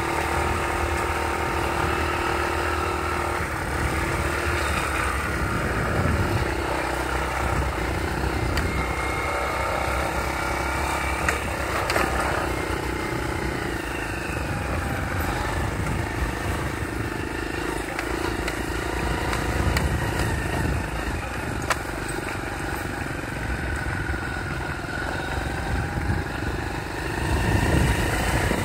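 Motorcycle engine running steadily while riding a bumpy dirt track, its pitch drifting gently up and down with the throttle, over a low rumble of wind on the microphone.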